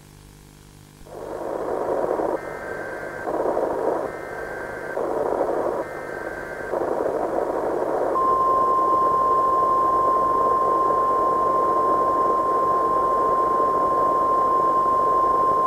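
Mock weather-radio emergency alert. Radio static cuts in about a second in, carrying three short bursts of the alert's data-header tones. From about eight seconds in comes a single long, steady warning tone in the manner of the NOAA Weather Radio alert.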